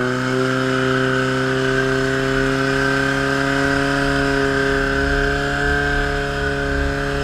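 Portable fire pump's engine running steadily at high revs, its pitch creeping up slightly, while the pump draws water from the tank through the suction hose.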